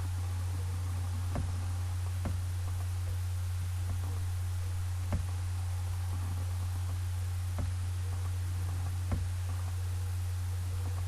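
A steady low hum, with five faint clicks scattered through it.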